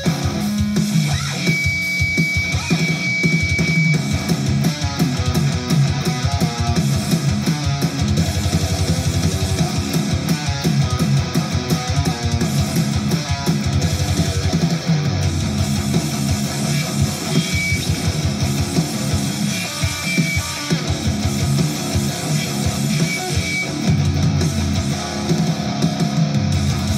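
Electric guitar played in a heavy rock or metal style, picked riffs running continuously, with drums beneath it.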